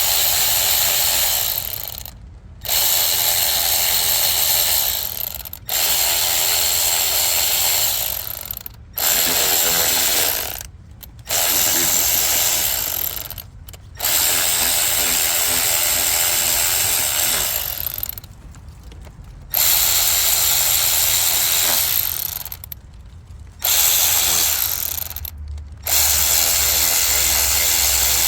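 A handheld power tool running bolts into the PCV valve housing of a 2.0L turbo engine, in about nine runs of a few seconds each with short pauses between, starting the bolts without tightening them.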